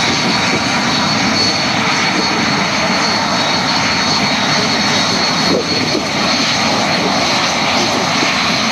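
Twin Adour turbofan engines of a SEPECAT Jaguar GR.1 jet running steadily as it taxis: a loud, even jet rush with a high whine through it.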